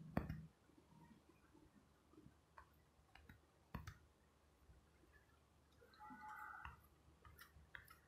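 Near silence: room tone with a few faint, sharp clicks, the clearest just after the start and another a little before the middle, and a couple more near the end.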